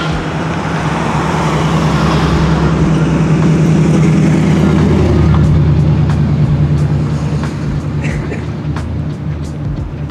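A car's engine passing by: it grows louder to a peak about five seconds in, then fades away.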